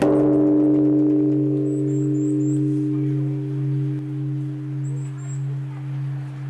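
A bell or singing bowl struck once, its deep hum ringing on and slowly fading with a steady pulsing wobble. Two brief runs of high bird chirps sound over it.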